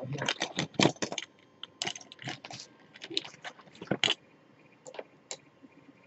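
Wires and plastic connectors of a heatbed wire harness being handled: a rapid run of small clicks and rattles, thinning out after about four seconds.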